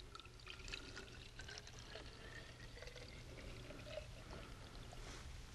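Water being poured from a plastic jug, a faint trickle, as one inch of water (444 mL) is measured out for a soil infiltration test.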